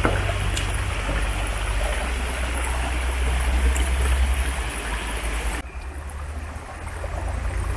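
Steady rushing of a stream with a low rumble beneath it; about five and a half seconds in the sound abruptly turns softer and duller.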